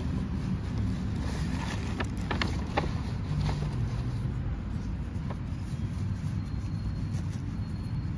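A steady low rumble, with a few short crackles of a paper towel and plastic bag being handled, bunched about two to three seconds in.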